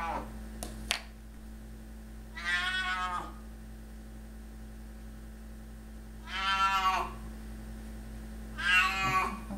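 Cat meowing three times, each call about a second long and spaced a few seconds apart.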